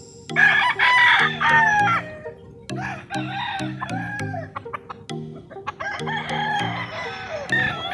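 Gamecocks crowing, several overlapping crows in three long bouts, over background music with a steady low beat.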